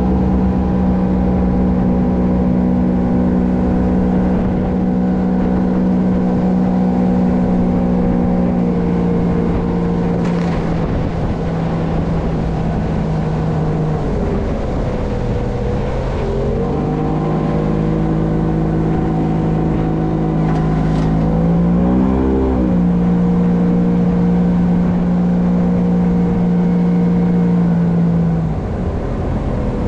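Outboard motor driving a small aluminium dinghy, running at a steady speed. The revs drop and come back up about halfway through, dip and rise quickly again a little later, and ease off near the end.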